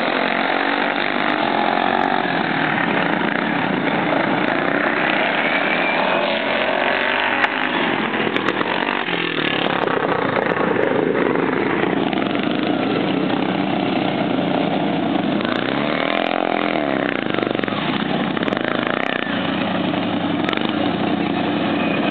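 Several racing lawn mowers' small engines running hard on a dirt track, the pitch rising and falling as they rev and pass.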